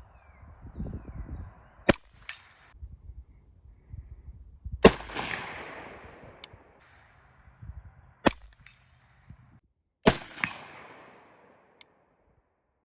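Rifle shots, four of them two to three seconds apart. Two of the shots are followed by a long rolling echo that fades over a second or more.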